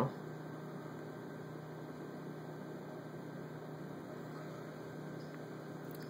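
Steady low electrical hum with faint hiss underneath, unchanging throughout.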